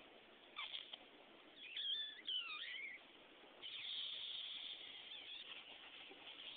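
High-pitched squeaky vocal noises: a short warbling run of squeaks that slide up and down, then a long, thin, steady squeal near the end.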